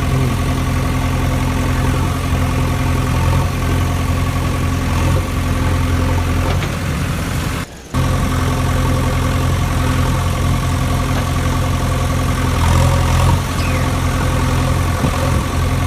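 An engine running steadily at idle, with a low, even hum. It cuts out for a moment about halfway through and then carries on unchanged.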